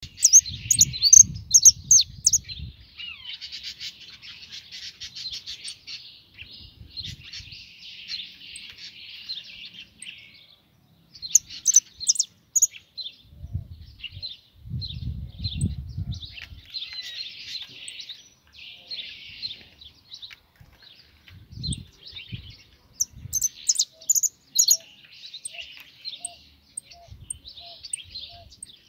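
A caged European goldfinch singing: long runs of quick twittering phrases broken by short pauses. Sharp, loud high notes ring out at the start, around the middle and again toward the end.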